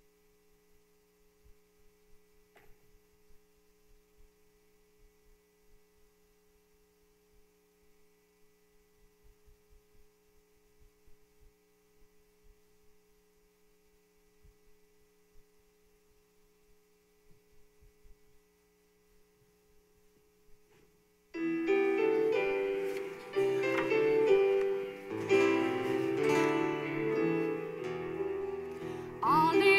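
Near silence with a faint steady hum for about twenty seconds, then a keyboard suddenly begins playing chords: the instrumental introduction to the sung Gospel acclamation.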